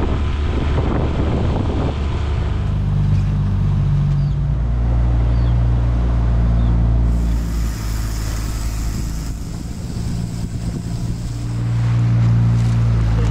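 Small boat's outboard motor running steadily, with wind and water noise; the engine note drops a little about four seconds in.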